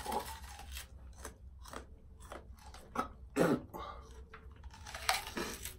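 Two people biting into and chewing raw onions, crisp crunching in quick, irregular bites, loudest about three seconds in.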